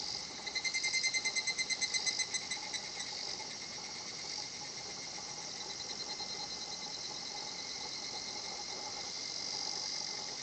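Higurashi (evening cicada) calling its 'kana-kana-kana' song: a fast run of pulses, about seven a second, that starts about half a second in and fades out after about three seconds. A steady high-pitched insect chorus carries on underneath.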